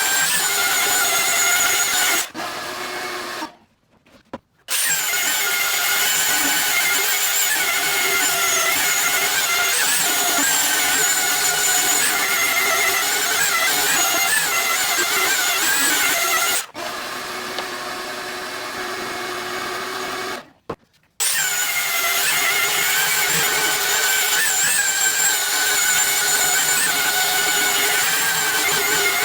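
Electric sander running steadily with a high whine. It drops off and goes quiet twice, about two seconds in and about seventeen seconds in, and restarts after a few seconds each time.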